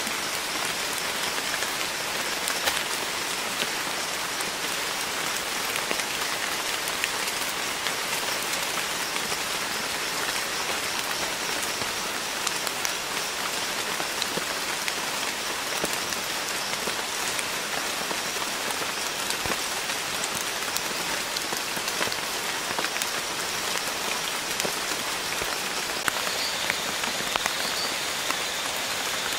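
Steady rain falling on rainforest leaves and on the surface of a shallow pool, a continuous hiss dotted with many single drop ticks.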